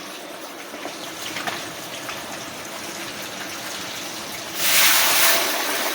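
Chicken wings deep-frying in hot oil: a steady sizzle that swells into a loud, rushing sizzle for about a second near the end.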